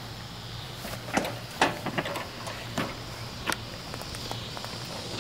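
A handful of short knocks and clunks as a rider climbs into a go-kart's seat and settles in, over a steady low hum.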